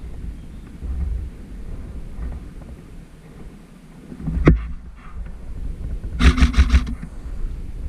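Low rumble of wind and movement on the microphone, a single sharp crack about halfway through, then an airsoft gun firing a short rapid burst of about eight shots near the end.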